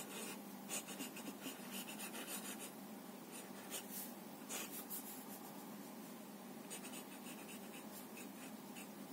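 Staedtler Initium Metallum fountain pen nib moving across paper, writing cursive in quick, faint, irregular strokes.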